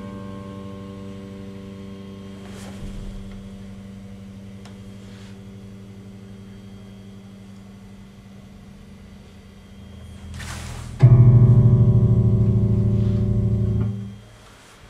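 1979 Fender Precision Bass electric bass guitar, unaccompanied: a single low note rings out and slowly fades for about ten seconds. About eleven seconds in, a second, louder note is plucked, held for about three seconds and then damped.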